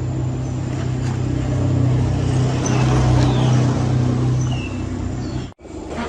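A machine running steadily with a constant low hum, a little louder around the middle.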